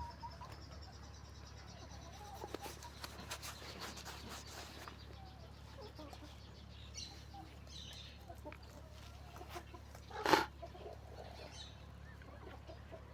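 Farm animals calling on and off: short, scattered calls with a run of light clicks early on and one much louder call about ten seconds in.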